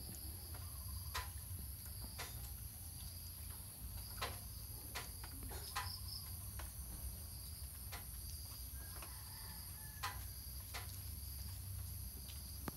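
Steady, high-pitched chirring of insects, with scattered faint clicks.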